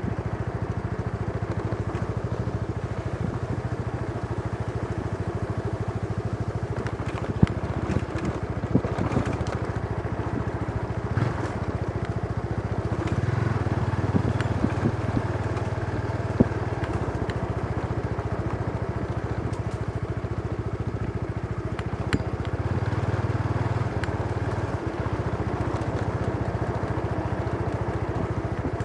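Motorbike engine running steadily on the move, with road and wind noise. It grows louder twice for a few seconds as the throttle opens, and a few sharp knocks come through, about three in all.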